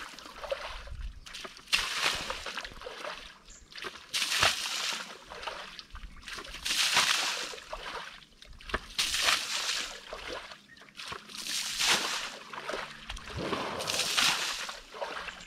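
Water splashing in repeated surges, about six times, one every two seconds or so, each lasting about a second.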